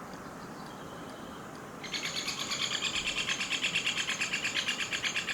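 Great spotted woodpecker calling: a rapid chattering run of sharp, high notes that starts about two seconds in and lasts about three seconds, over a steady low rush of light wind.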